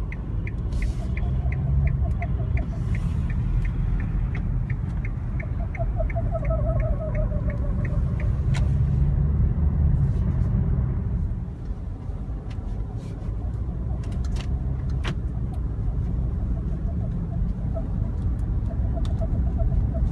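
A 2014 Kia Sportage creaking in freezing cold over the car's steady low rumble. A rapid regular chirp of about three ticks a second runs for the first eight seconds, and wavering squeaks come back several times.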